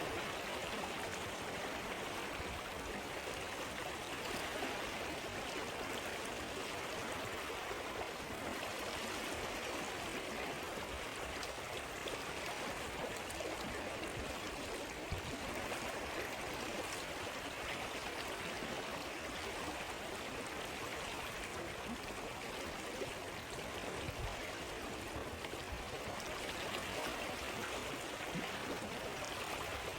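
River water flowing and babbling steadily over stones, with a few faint crackles from a campfire.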